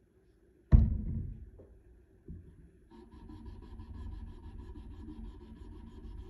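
A single thump under a second in, then from about three seconds in the even, quick back-and-forth scratching of sandpaper, wrapped on a curved jig, being rubbed by hand along the wet, soapy hollow-ground bevel of a CPM-3V steel knife blade.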